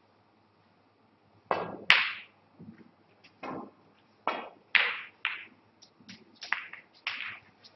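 Snooker balls being struck and colliding: a series of sharp clicks and softer knocks from cue tip, balls and cushions. The loudest are two clicks close together about one and a half seconds in.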